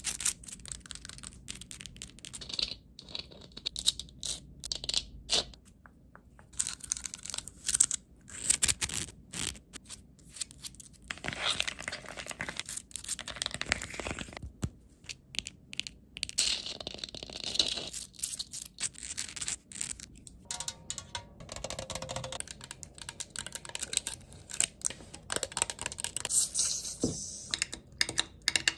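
Fast ASMR triggers: quick, irregular tapping and scratching on assorted objects, with crinkly, tearing-like stretches.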